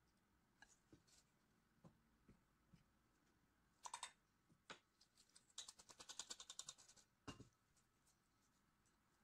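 Hand-squeezed stainless steel flour sifter clicking rapidly, about ten clicks a second for just over a second, as powder is sifted into a glass bowl. A few faint knocks come before it, and a single thump near the end.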